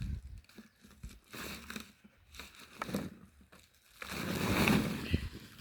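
A sack rustling and crunching as potatoes are pressed down into it, in irregular bursts, with the longest and loudest rustle about four to five seconds in.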